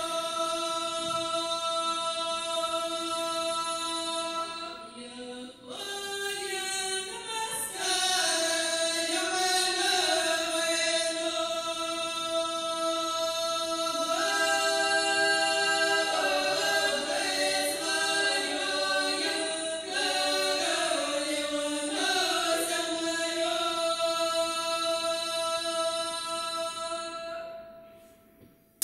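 Choir singing a cappella in long held chords that change every couple of seconds, fading out near the end.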